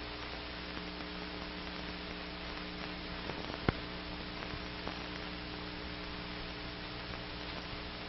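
Steady hiss and hum of an old film soundtrack before the picture's sound begins, with a sharp click about three and a half seconds in.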